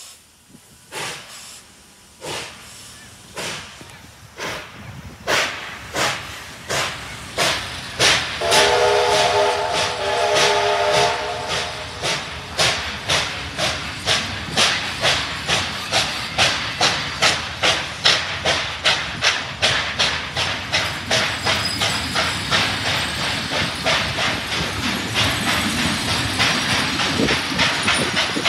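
Steam locomotive 3801, a NSW 38 class Pacific, working hard under load: its exhaust chuffs quicken from about one a second to two or three a second over a steady hiss. A chime steam whistle sounds for about three seconds, some eight seconds in.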